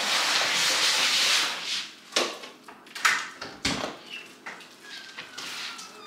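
A plastic trash bag rustling and crinkling loudly for about two seconds as it is handled at the bin, then a few sharp knocks and clicks, one with a dull thump, and a faint high squeak near the end.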